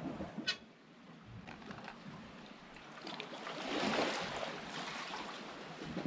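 Squid rings and garlic cooking in olive oil in a pan, a watery bubbling sizzle that swells and is loudest about four seconds in. A single sharp click sounds about half a second in.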